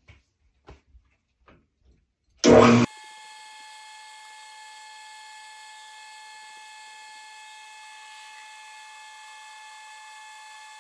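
A few faint clicks, then a metal lathe starts with a loud brief clunk about two and a half seconds in and settles into a steady, high, ringing whine as the tool turns a 5-degree taper on the edge of a steel drive pulley. The machinist judges this cut too heavy from the way it cuts.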